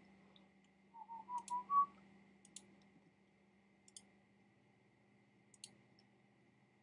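Computer mouse clicking about once every second or two, each click placing a point of a polygonal lasso selection. About a second in, a person whistles a short run of rising notes.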